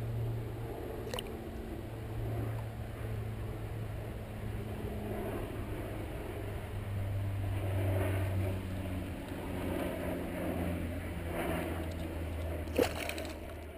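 An engine running steadily with a low, slowly wavering drone. There is a faint click about a second in, and a sharp knock near the end.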